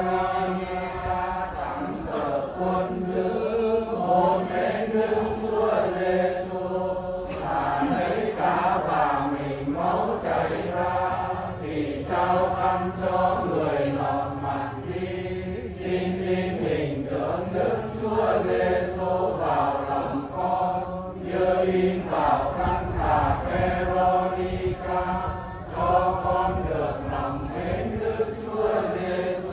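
Voices chanting prayers together in a sing-song unison, the Vietnamese Catholic way of reciting prayers, continuing without a break. A steady low hum runs beneath.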